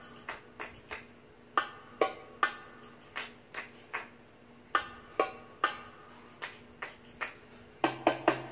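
Recorded Middle Eastern drum-solo music for belly dance: a goblet drum (darbuka) playing sharp, ringing strokes in spaced groups of three, turning into a faster roll near the end as a low steady tone comes in.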